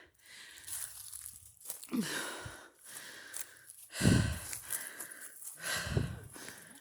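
Footsteps through wet mud and debris, crunching and rustling, with three heavier steps about two seconds apart.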